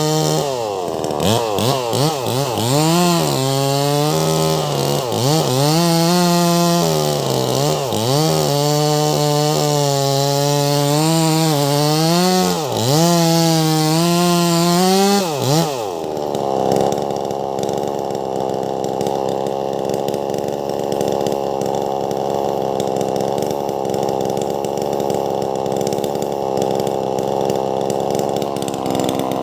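Wagner 580 chainsaw with a 24-inch bar cutting lengthwise into a large log. For the first half its engine pitch repeatedly dips under load and recovers. About halfway through the sound turns steadier and rougher.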